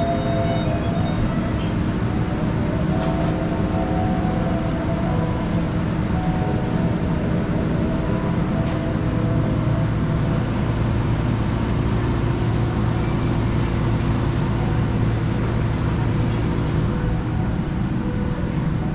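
Steady mechanical rumble and hiss from a glassblowing studio's gas-fired glory-hole furnaces and overhead exhaust hoods. A deeper hum grows stronger about halfway through and eases near the end.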